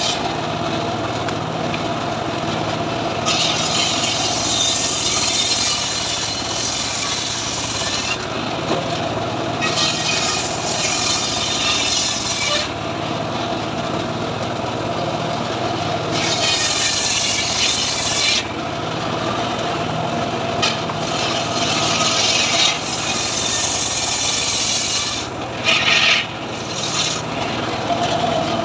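Homemade engine-driven circular saw bench running with a steady hum, its blade ripping lengthwise through lamtoro (leucaena) wood about five times, each pass of a few seconds adding a rasping, hissing cutting noise over the hum.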